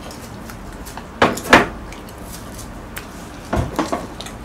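Knocks and clatter of tableware being handled: two sharp knocks a little over a second in, then a short run of lighter clatter near the end.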